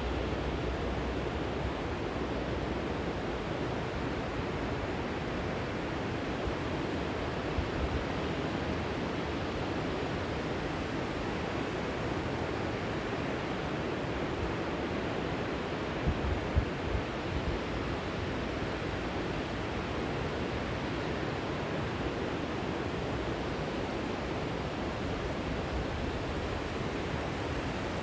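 Water pouring over a low river weir: a steady, even rushing. A few brief low bumps stand out about a quarter of the way in and again just past the middle.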